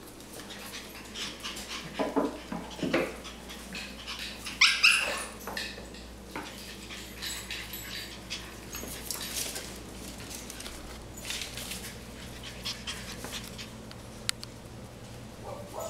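Cavalier King Charles Spaniel puppies playing: a few short yaps and growls, with one loud high yip about five seconds in, over the light scrabbling of claws on a tile floor.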